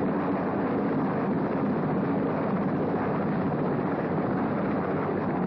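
Rescue helicopter running steadily, its engine and rotor giving an even rushing noise mixed with wind.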